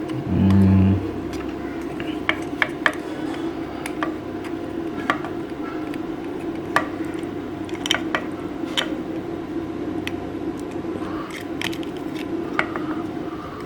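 Sharp plastic clicks and taps from a small PIR motion-sensor transmitter's casing being handled and turned over, scattered irregularly, over a steady low hum. A short, loud low thump comes about half a second in.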